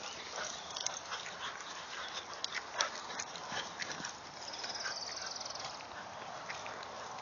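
Two dogs, a Wheaten Terrier and another dog, chasing and scuffling in play, with scattered short thumps and rustles.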